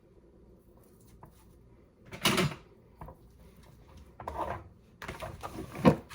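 Kitchen handling noises during food prep: a few short knocks and clatters about two, three and four seconds in, then a longer stretch of handling ending in the loudest knock near the end.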